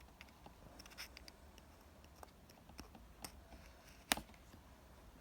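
Cardboard card-game packaging being handled: light scratching and small taps, with one sharp click about four seconds in.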